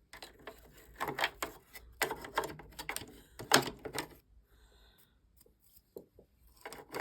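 Irregular clicks, taps and short scrapes of small cleaning tools working inside an opened sewing machine's bobbin area as lint is picked out. The loudest click comes about three and a half seconds in, and the taps thin out to a few faint ticks after about four seconds.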